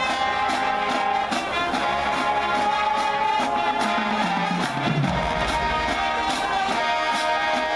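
High school marching band playing: brass horns holding long chords over a steady drum beat.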